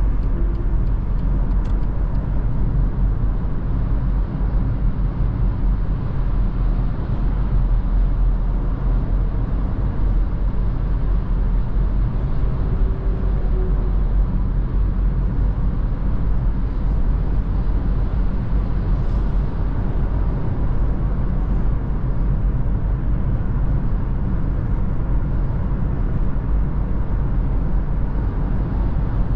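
Steady in-cabin drone of a 2017 BMW 116d cruising at motorway speed: deep road and tyre rumble with its 1.5-litre three-cylinder turbodiesel running evenly underneath, without any change in pace.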